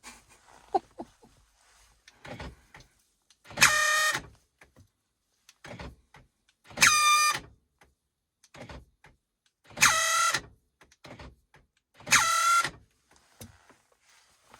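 BMW E93 sounding a short, horn-like tone each time its doors are locked: four tones of about half a second, roughly three seconds apart, with light clicks between them. This is the weird sound that the owner hears on locking.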